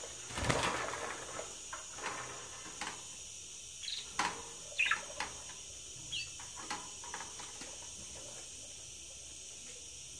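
Caged budgerigars: a brief flurry of wing flapping about half a second in, then scattered clicks and a few short, high chirps.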